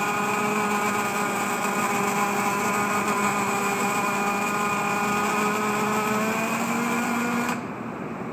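MIG welding arc on a steel pipe held in a weld positioner: a loud, steady hiss with a steady hum under it, cutting off suddenly about seven and a half seconds in as the arc is broken.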